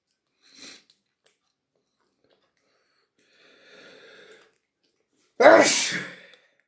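A cat licking gravy off a plate, with a few faint, soft sounds. Near the end comes one sudden loud breathy burst that fades over about a second.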